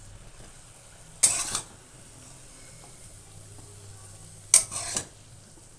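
Metal spatula stirring cabbage and potatoes in a kadai: two short bursts of clanking and scraping, about a second in and again near the end, each starting with a sharp knock against the pan.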